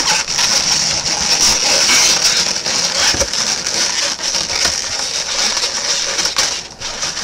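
Latex twisting balloons rubbing and squeaking against each other as they are handled and a knot is wrapped around a twist joint. It is a loud, continuous scratchy rubbing with many small clicks, easing off near the end.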